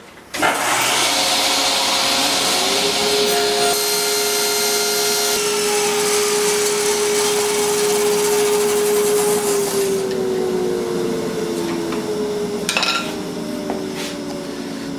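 Table saw starting up and running steadily while its blade is raised up through a workpiece to cut a slot. From about ten seconds in its pitch slowly falls as the blade winds down, with a couple of sharp clicks near the end.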